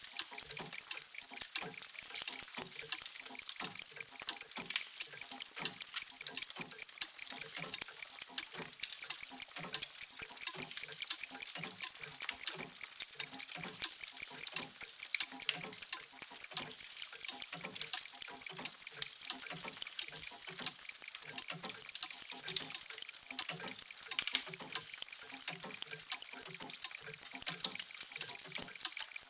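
Many mechanical clocks ticking at once, out of step with one another, so that their sharp ticks run together into a dense, steady stream of many ticks a second, with softer, lower knocks beneath.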